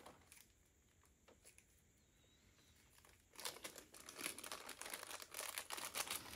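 Crinkling of a small clear plastic packaging bag being handled, starting about halfway through and going on rapidly for about three seconds.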